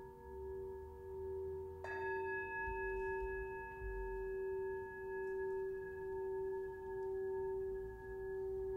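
Hand-held Himalayan singing bowl ringing with a steady low tone that pulses in and out about once a second. About two seconds in it is struck with its stick, adding brighter, higher overtones that ring on.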